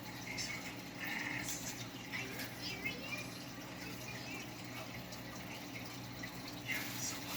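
Aquarium water trickling and lightly splashing over a steady low hum.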